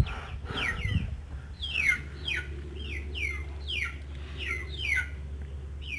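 A bird calling over and over in short, high notes that fall in pitch, about two a second, over a low steady hum.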